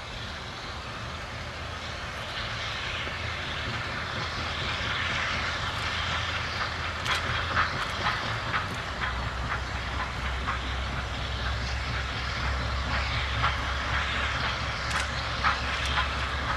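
Baldwin 2-8-2 Mikado steam locomotive working a narrow-gauge freight train past, its exhaust a steady rush that grows louder as it draws nearer. Sharp clicks from the train start about seven seconds in.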